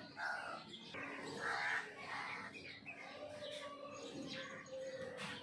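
Birds calling: two louder calls in the first two seconds, then fainter short chirps.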